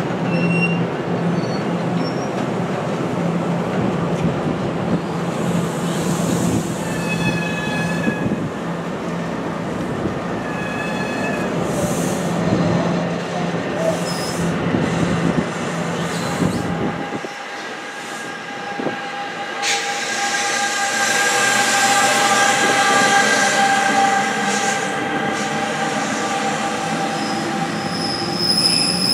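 NJ Transit Multilevel commuter coaches rolling by on wet rails, a steady rumble and hum with short wheel squeals. About 17 seconds in the rumble drops off as the train clears. A second, electric-hauled train then comes up with a rushing noise and a steady high whine of several tones.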